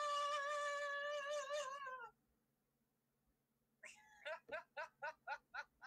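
A singer's long, high 'Aaah!' cry held for about two seconds with a wobble in the pitch, dropping off at the end; after a short pause comes a burst of laughter, about four quick 'ha's a second.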